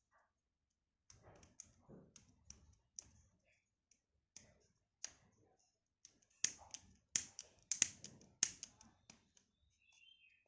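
Small metal clicks from the ratchet and pawl mechanism of a disassembled Shimano XTR M970 9-speed shifter, worked by hand. The clicks come scattered, then a quick run of sharper, louder clicks about six to eight and a half seconds in.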